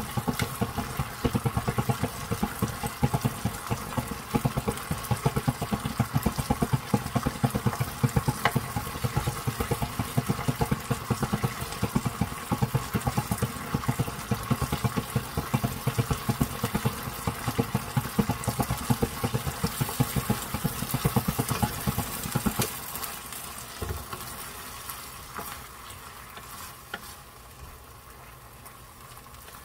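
Wooden spatula stirring sweet and sour pork in a frying pan, with rapid taps and scrapes against the pan over the sizzle of the sauce. About 23 seconds in the stirring mostly stops, leaving a fainter sizzle with a few last taps.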